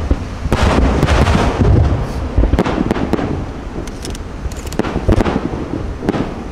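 Aerial fireworks shells bursting in quick succession, a run of booms and crackling reports. There is a sharp bang right at the start, and more loud bangs about two and a half and five seconds in.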